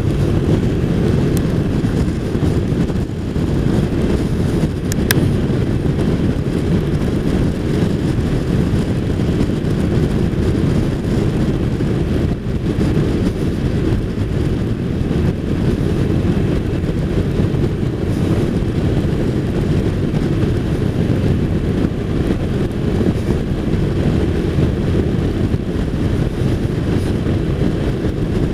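Steady low rumble of a touring motorcycle riding at speed, mostly wind rushing over the microphone mixed with engine and road noise, unchanging throughout.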